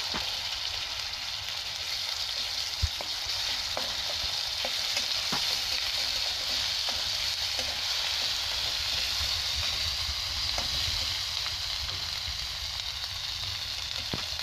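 Onions, chillies and spice paste sizzling in hot oil in a stainless steel kadai. A steel spatula stirring them scrapes and taps the pan now and then.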